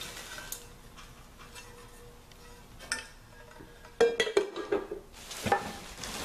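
Metal cookware being handled: a quiet stretch with a light click, then about four seconds in a sharp clank of a metal saucepan with a short ring, followed by a rustle.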